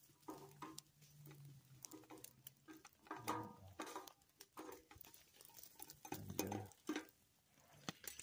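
Faint scattered light clicks and taps, the sound of small gear being handled.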